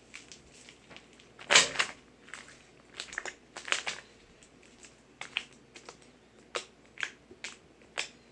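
Slime being played with by hand: a run of sharp wet clicks and pops at irregular intervals, the loudest about one and a half seconds in.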